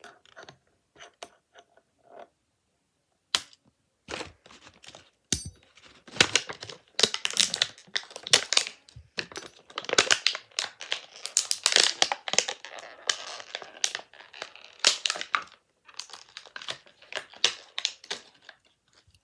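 Toy packaging being torn and crinkled open by hand. A few scattered clicks and taps come first. About six seconds in, a long stretch of dense tearing and crinkling begins.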